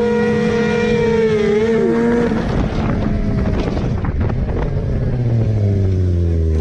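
Sport motorcycle engine held at steady high revs during a burnout, wavering briefly, then cutting off about two seconds in as the bike goes down, followed by scraping and clattering of the bike sliding on the road. Near the end a lower engine note falls steadily in pitch.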